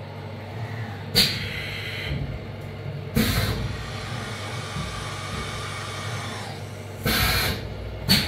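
Syil X7 CNC milling machine running after cycle start: a steady low hum, with a sharp click about a second in, a loud hiss about three seconds in that fades into a fainter hiss, another loud hiss about seven seconds in, and a sharp click near the end.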